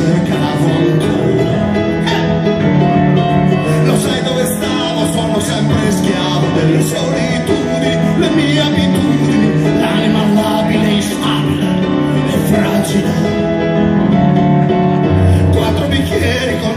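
Music: a song with guitar and singing, playing steadily.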